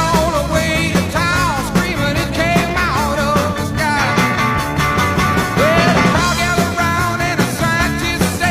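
Rock music with a steady beat and a wavering lead voice or instrument over it.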